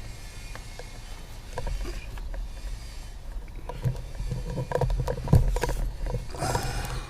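Hands working under a car's dashboard around the hood release cable: scattered clicks and knocks, loudest about five seconds in, then a short rustle, over a low steady rumble.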